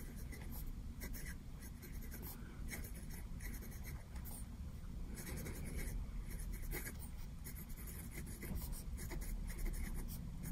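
Sailor Pro Gear fountain pen with a medium-fine nib writing on paper: the nib scratches lightly in many short, irregular strokes as each letter is formed.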